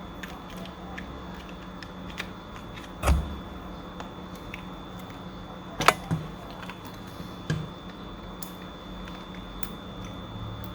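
Small clicks and knocks of headphone parts and tools being handled while Marshall Major IV headphones are taken apart, with four louder knocks about three, six and seven and a half seconds in, over a faint steady hum.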